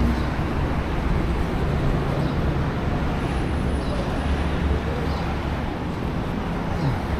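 City street traffic: a steady hum of passing vehicles and engines.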